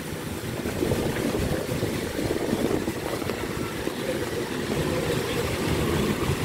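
Wind buffeting the camera's microphone in a typhoon downpour: a steady, fluttering low rumble, with a fainter hiss of rain over it.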